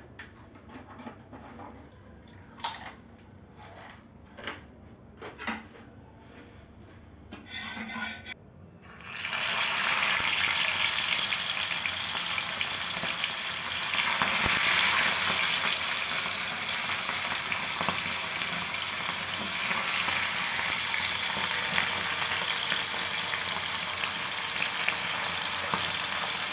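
Pomfret frying in a pan: a loud, steady sizzle that starts suddenly about nine seconds in. Before it, a few short knocks.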